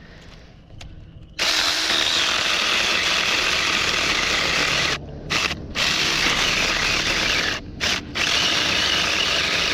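Saker 20-volt cordless mini electric chainsaw starting about a second and a half in and cutting through a thick tree trunk. It runs steadily and loudly, dropping out briefly four times.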